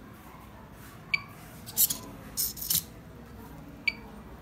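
Small servo motors of a DIY robot dog whirring in short bursts as its legs move. There are two sharp clicks with a brief ring, about a second in and near the end.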